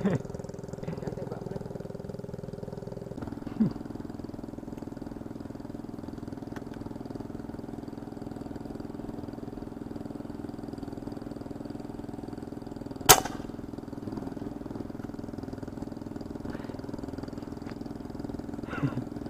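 Small petrol engine of an electrofishing rig running steadily, its note changing about three seconds in. A single sharp crack about two-thirds of the way through.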